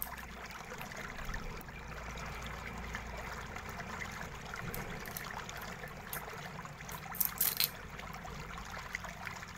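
Small screwdriver working the screw of a laptop's Wi-Fi card, giving light metallic clicks and taps, with a short cluster of sharper clicks about seven seconds in, over a steady background hiss.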